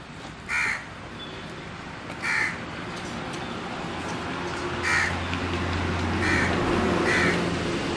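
A crow cawing five times, short single caws spaced one to two and a half seconds apart, over steady background hiss. A low hum swells in about halfway through.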